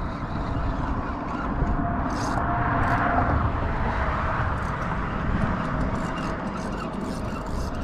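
Steady rumble of road traffic crossing the bridge, with a faint thin tone about three seconds in and scattered short ticks.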